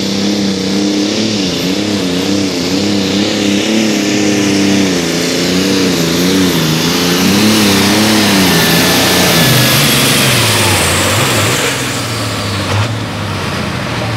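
Turbocharged diesel pulling tractor engine running hard during a pull, its pitch wavering up and down for several seconds. About nine seconds in the pitch falls steeply as the throttle comes off, and the sound eases down near the end. A thin, high steady whine sits over the engine until shortly before that.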